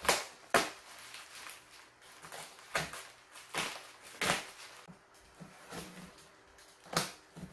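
Clear plastic wrapping being pulled and torn off a cardboard box: irregular sharp crinkles and rustles, several of them louder, spaced from under a second to a few seconds apart.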